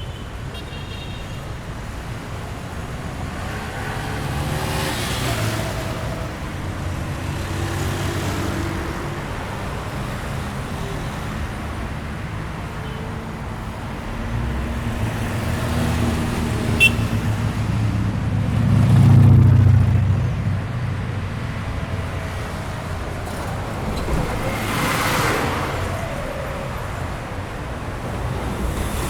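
Busy city street traffic: a steady low rumble of engines and tyres with vehicles passing one after another, a heavy vehicle passing loudest about two-thirds of the way through. A brief sharp click a little past halfway.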